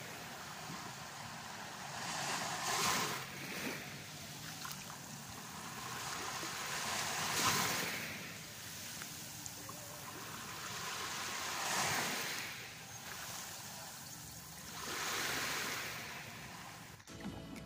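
Small waves breaking and washing up a coarse sand beach, surging four times, about every four to five seconds, with a softer wash between.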